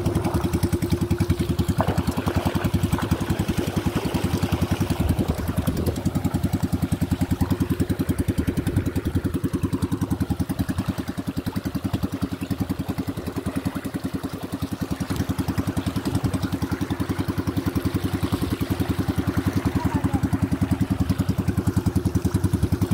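Pumpboat engine running steadily at cruising speed with an even, rapid beat, towing a small boat along.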